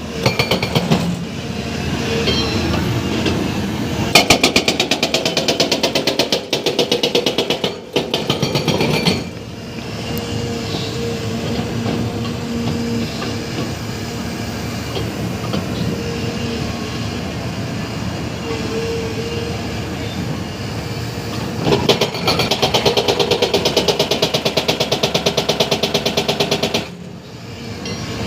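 Hydraulic breaker on an excavator hammering concrete in two long runs of rapid, evenly spaced blows, with the machine's engine running steadily between them.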